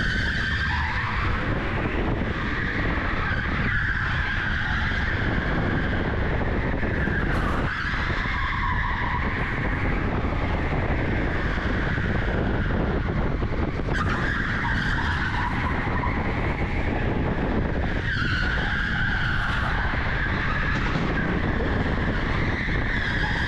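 Electric go-kart at speed on an indoor track, heard from the driver's seat: a steady rush of tyre and track noise, with a high whine that rises and falls several times as the kart slows for corners and speeds up again.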